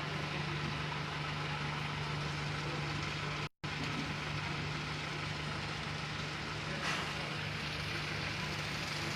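Rain falling steadily, with a steady low hum beneath it like a motor or idling engine. The sound drops out completely for a moment about three and a half seconds in.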